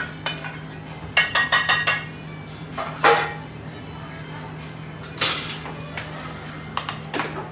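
Metal pots, pans and utensils clanking and clinking in a commercial kitchen, over a steady low hum. There is a quick run of about six ringing clinks about a second in, then single clanks every second or two.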